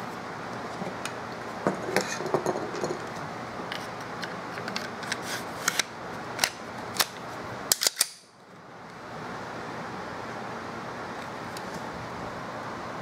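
Sharp clicks and clacks of a Glock 23 pistol slide being handled and slid back onto its frame, closest together about eight seconds in. A steady low hiss follows.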